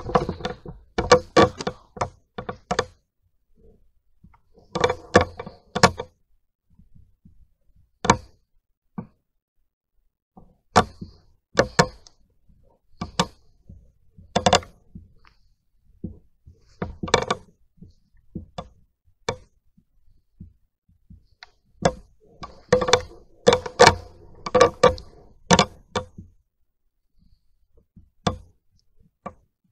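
Irregular sharp knocks and clicks, some single and some bunched in quick clusters, with quiet gaps between.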